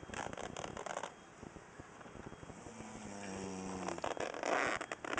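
A man snoring heavily: a rattling, fluttering breath, a pause, then a low droning tone that runs into a louder rattling snore near the end.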